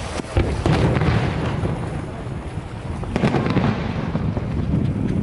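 Aerial firework shells bursting: sharp bangs about half a second in and another cluster of bangs about three seconds in, over a steady low rumble of wind on the microphone.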